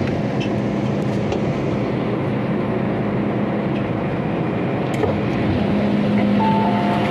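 Running noise of an MTR M-Train electric multiple unit in motion: a steady rumble of wheels on rail with a low electric hum. Near the end a short two-note tone sounds, falling from the higher note to the lower.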